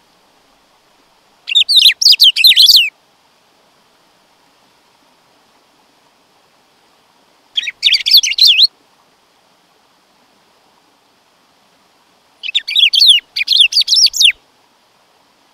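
Black-throated saltator (bico-de-pimenta) singing: three short phrases of quick, high chirping notes, a few seconds apart, the last one the longest.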